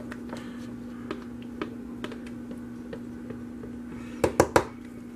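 Thick soap batter poured and scraped from a plastic pitcher into a wooden loaf mould: faint soft clicks and scrapes, then three quick sharp knocks about four seconds in. A steady low hum runs underneath.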